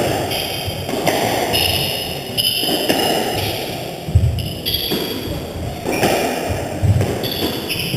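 Squash rally: the rubber ball smacked by racquets and thudding off the court walls, with players' shoes squeaking on the sprung wooden floor, all echoing in the enclosed court. The sharpest thuds come about four seconds in and again near seven seconds.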